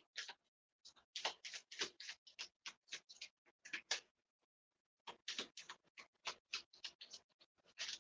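Moonology oracle cards being shuffled by hand: a run of short, soft card clicks and flicks, about three or four a second, pausing for about a second roughly halfway through.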